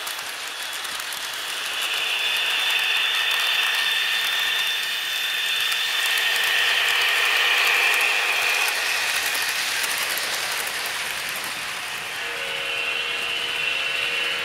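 HO-scale model freight train running by on the track: the mechanical whirr of the Atlas GP40-2's motor and gear drive and the cars' wheels on the rails, with a high steady whine that swells toward the middle and then eases. New steady tones come in near the end.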